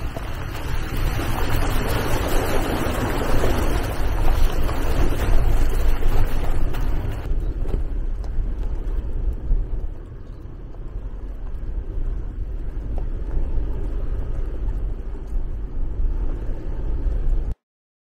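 Rumble of an SUV driving slowly along a dirt road, with wind buffeting the microphone. The hiss eases about seven seconds in, and the sound stops abruptly near the end.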